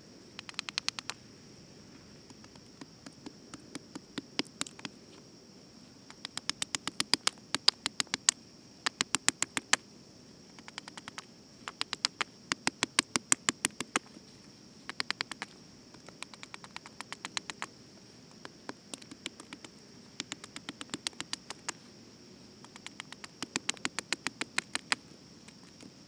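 Hatchet hewing a wooden board: quick runs of sharp wooden knocks, about fifteen a second, in bursts of around a second with short pauses between, over a thin steady high hiss.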